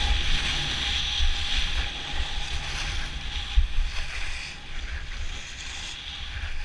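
Wind buffeting a GoPro's microphone during a downhill ski run, a low rumble under the steady hiss of skis sliding on packed snow.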